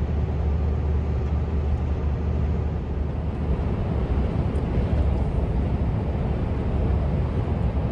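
Steady drone of a Scania R500 V8 diesel truck heard from inside the cab while driving, engine and road noise together with a strong low rumble.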